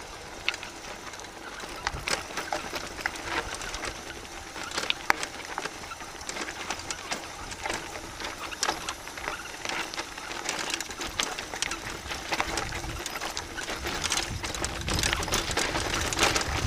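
Mountain bike rolling downhill over loose gravel and stones: tyres crunching and the bike rattling, with many sharp clicks and knocks. A low wind rumble on the microphone builds in the last few seconds.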